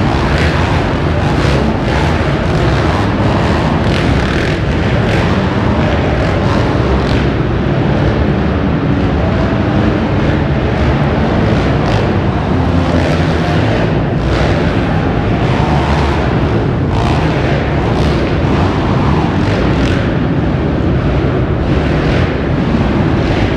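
Several racing quad ATVs running laps of a dirt track inside a large indoor arena: a loud, steady engine din.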